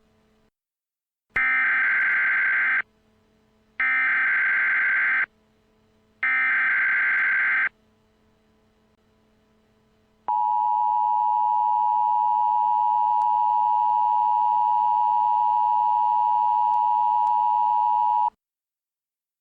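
Emergency Alert System alert header. Three identical bursts of screechy digital SAME data, each about a second and a half long, are followed about two and a half seconds later by the steady two-tone EAS attention signal, held for about eight seconds. This sequence marks the start of an emergency alert broadcast.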